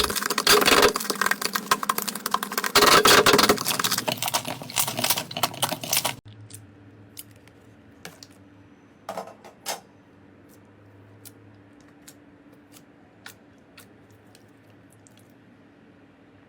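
Slime being worked by hand, a dense run of crackling, clicking pops for about six seconds. It then cuts off abruptly to a quiet stretch with only a few sparse clicks and soft squishes.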